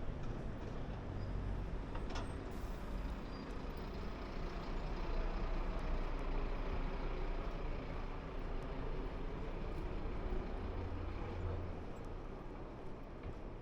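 City street traffic, with a heavy road vehicle running close by and a low, steady rumble. A short high hiss comes about two and a half seconds in.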